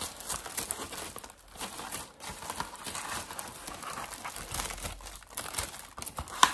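Packaging crinkling and rustling as it is handled and unwrapped, irregular throughout, with a sharp click near the end.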